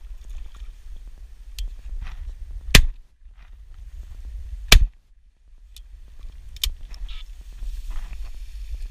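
Two shots from a 12-gauge Browning B725 over-and-under shotgun, both barrels fired about two seconds apart. A low rumble of wind on the microphone runs underneath.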